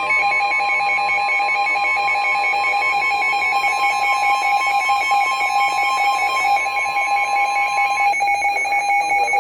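NOAA Weather Radio warning alarm, a steady single tone of about 1050 Hz that stops about eight seconds in, signalling an incoming severe weather warning. Over it a weather radio receiver's own rapid electronic alert beeping sounds and carries on after the tone ends.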